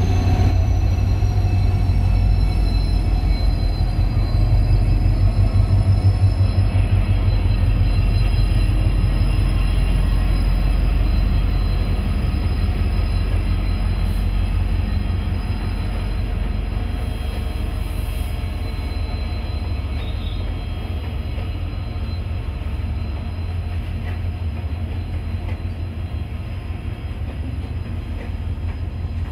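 Two diesel locomotives hauling a goods train pass close by, their engines making a deep, pulsing rumble that is loudest a few seconds in. A long line of covered freight wagons then rolls past, and the rumble slowly fades.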